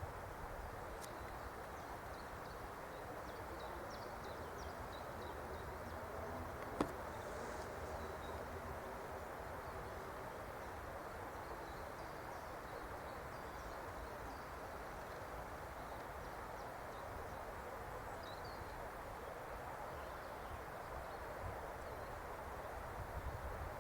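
Outdoor ambience: a steady rushing background noise with faint, scattered chirps of small birds. There is one sharp click about seven seconds in.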